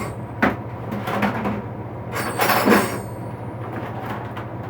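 Tools and parts being handled in a tool box: a sharp knock about half a second in, a few light clicks, and a longer scraping slide a little after two seconds, over a steady low hum.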